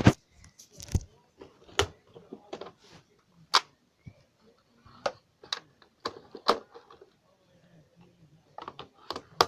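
Plastic clicks and knocks of an attachment being fitted onto a Nerf Retaliator blaster: a dozen or so sharp, irregularly spaced taps, with a quick cluster near the end.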